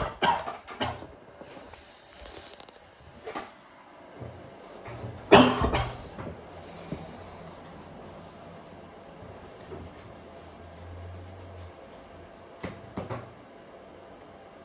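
Coughing: a few short coughs at the start, one about three seconds in, the loudest just after five seconds, and a pair near the end.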